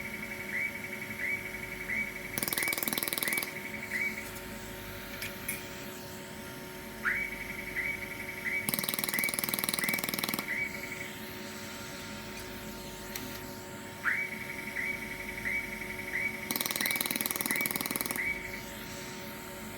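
YAG laser welding machine firing pulse after pulse, a short sharp tick about one and a half times a second, in three runs of several seconds each. A loud hiss comes in for a second or two during each run, over a steady machine hum.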